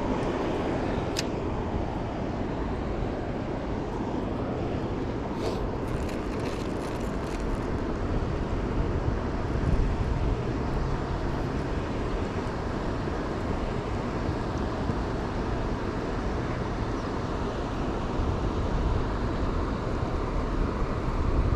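Steady low outdoor rumble of wind on the microphone and distant city traffic, with a few faint ticks about a second in and again around six to seven seconds in.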